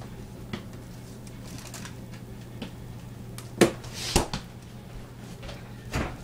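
Steady low hum of a running microwave oven, with a few short sharp knocks; the loudest come about three and a half and four seconds in.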